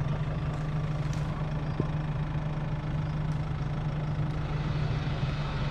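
Mercedes X-Class X250d's four-cylinder diesel engine idling steadily, with no revving.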